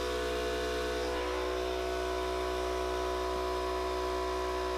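Electric air compressor running with a steady, even hum.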